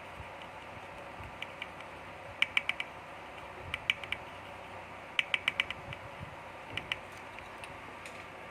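Small sharp clicks in quick bursts of two to five, several times over, like keys or buttons being pressed, over a steady low hiss.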